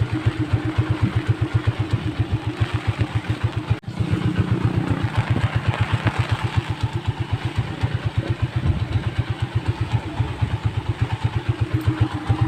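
Small motorcycle engine running at a steady pace, its exhaust pulsing about seven times a second, under a hiss of heavy rain. The sound briefly cuts out about four seconds in.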